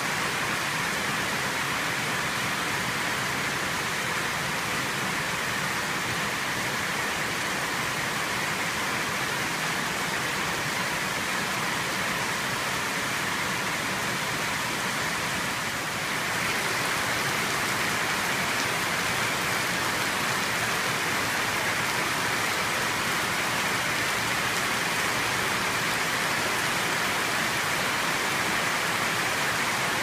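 Heavy rain falling steadily, an even, dense hiss that gets slightly louder about halfway through.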